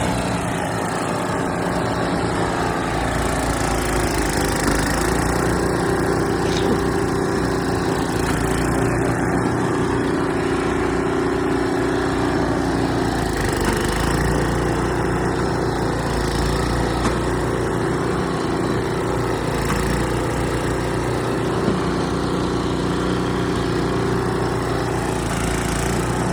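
A small engine running steadily, with its pitch dipping briefly about 13 seconds in.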